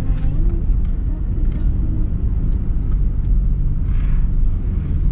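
Steady low rumble of engine and road noise heard inside a moving car's cabin.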